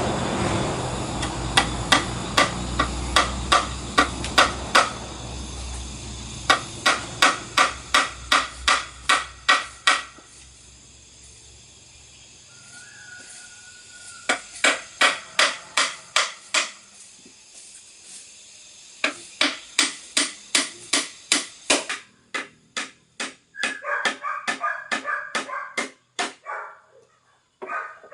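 Hammer blows in quick, even runs of about three strikes a second, stopping and starting several times.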